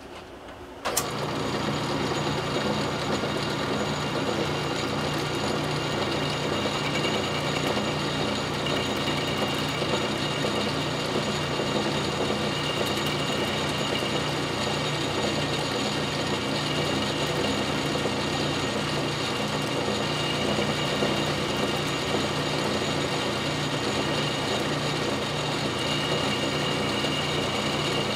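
South Bend Model A lathe starting up about a second in and then running steadily, its four-jaw chuck turning while the tool faces off the end of a drill-rod part.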